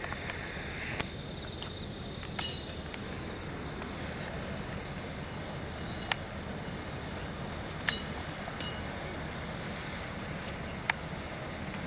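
Sharp, ringing metallic clinks of steel striking steel at rail welding work, about five strikes at irregular intervals, over a steady low rumble.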